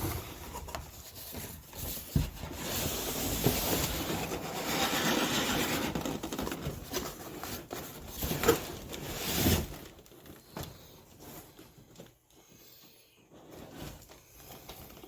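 Cardboard and plastic packaging rubbing and scraping as a boxed car fender is handled, a dense rustling for about ten seconds with scattered knocks. It then dies down to faint knocks.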